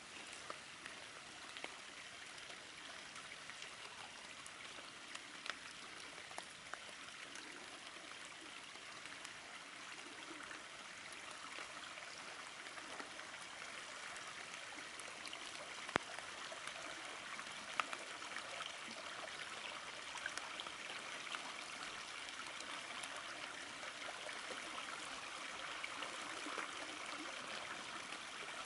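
Shallow creek water trickling and spreading over a dry gravel-and-rock bed as rain runoff fills it, the flow getting slowly louder, with a few sharp ticks scattered through it.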